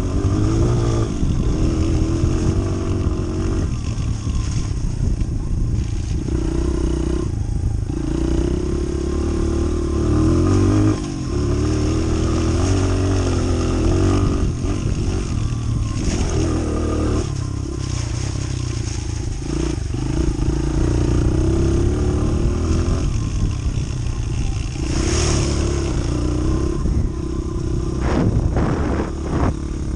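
Small Honda single-cylinder four-stroke trail bike engine heard from the rider's seat, revving up and easing off again and again as it is ridden across rough grass. A few clattering knocks come near the end.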